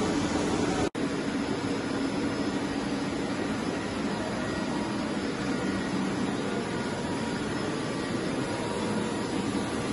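Steady background hum and hiss of a large machine-shop hall, with a few faint steady tones in it; the sound drops out for an instant about a second in.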